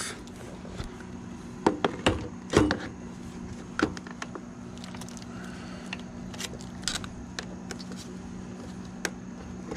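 Juiced Scrambler e-bike battery pack being slid into the frame and seated: a run of hard knocks and clicks, loudest about two and a half seconds in, then lighter taps and scrapes, over a steady low hum.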